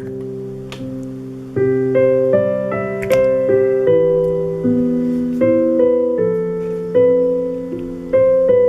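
Background piano music: slow chords struck about every half second to a second, each ringing on.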